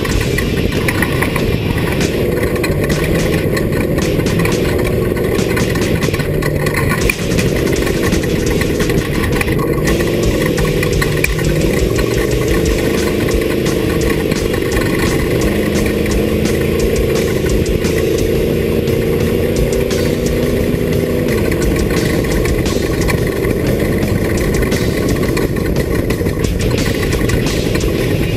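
Off-road race vehicle's engine running hard, its pitch holding and then shifting up and down, over a continuous rushing noise.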